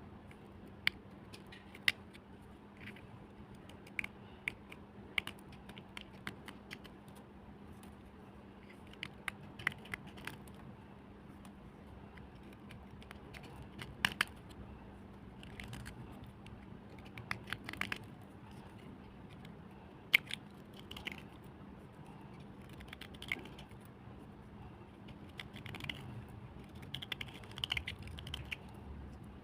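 Irregular sharp crunches and clicks of wet black slate cubes being crunched, with a few louder cracks about 14 and 20 seconds in, over a steady low hum.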